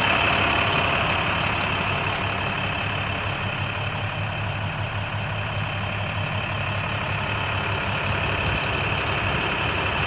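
International 4400's DT466 inline-six diesel engine idling steadily.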